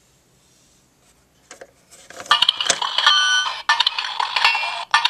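Electronic sound effect from a Sodor Mining Co. toy playset's speaker: a loud clinking mining sound with ringing tones. It starts about two seconds in, after a few soft plastic clicks, and repeats about every second and a half.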